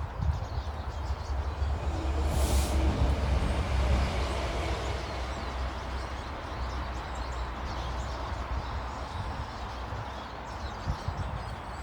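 A low rumble that swells over a couple of seconds and then fades, with faint bird chirps above it.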